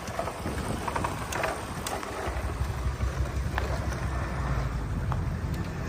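Diesel engine of heavy earthmoving machinery running with a steady low rumble, with a few short clanks and knocks over it.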